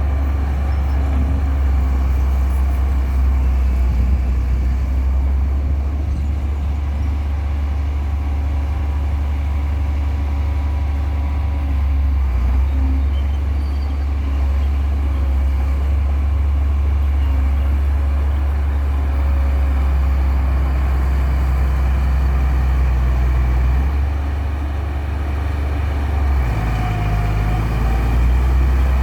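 A heavy vehicle's engine running steadily as a deep, constant drone, changing pitch a couple of times toward the end.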